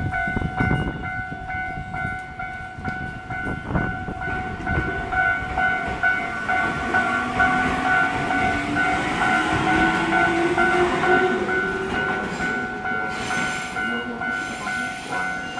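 Japanese railway level-crossing alarm ringing with a fast, even electronic ding while an electric train runs through, its motor whine rising in pitch midway as the train accelerates; the bell stops at the very end.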